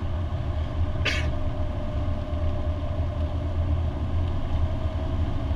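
Lancia Delta HF Turbo heard from inside the cabin, cruising at steady speed: a constant low engine and road drone. A brief hiss cuts in about a second in.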